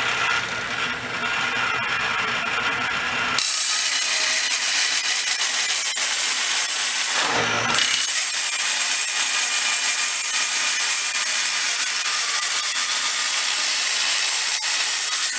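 A belt-driven Rockwell table saw, slowed to half speed (1700 RPM) and fitted with a 7-1/4 inch 40-tooth carbide blade, running. About three seconds in, the blade bites into plate steel, and the sound jumps to a louder, steady high-pitched hiss as the steel is cut.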